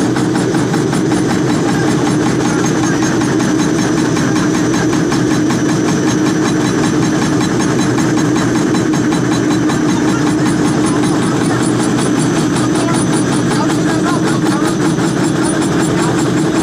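Sheet-metal stamping press and its coil feeder running: a loud, steady machine drone with a fine rattle, unbroken and even in level.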